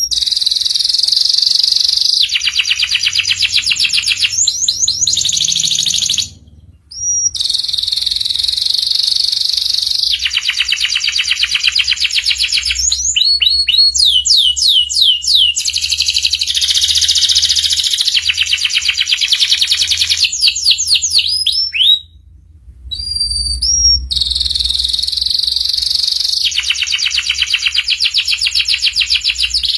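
Young domestic canary singing in long, rapid, high trills with quick sweeping notes between them, broken by two short pauses.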